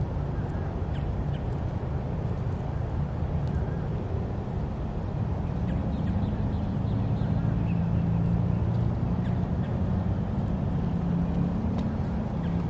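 Small motorboat's engine droning over the water, growing louder about halfway in, over a low steady rumble. Faint bird calls come through now and then.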